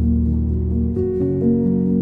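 Background music with held chords; the chord changes about a second in.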